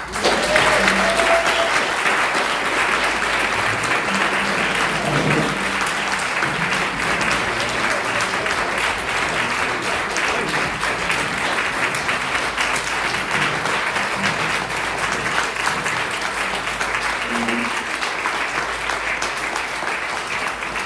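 Audience applauding at the end of a speech. The clapping starts abruptly and goes on steadily and loudly.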